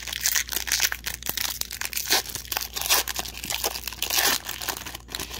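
A shiny foil wrapper of an Upper Deck Parkhurst hockey card pack being torn open and crinkled by hand: dense crackling and crinkling with sharp little clicks, louder for a moment about four seconds in.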